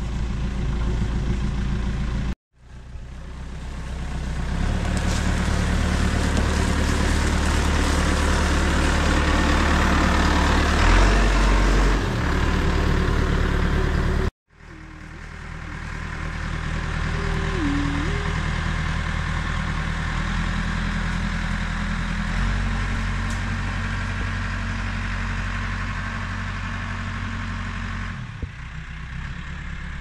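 Caterpillar backhoe loader's diesel engine running steadily as the machine travels. The engine note shifts once in the second half and grows fainter near the end. The sound cuts out abruptly twice, each time fading back up.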